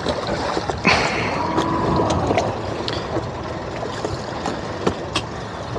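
Water sloshing and lapping against boat hulls as a steady wash, with a few light knocks.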